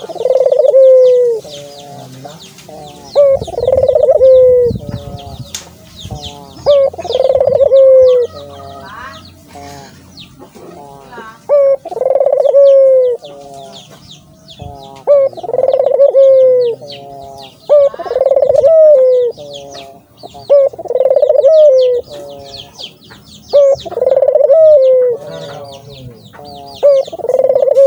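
Puter dove (Barbary dove) cooing over and over, one loud call about every three to four seconds, nine calls in all, with a busy high twittering behind.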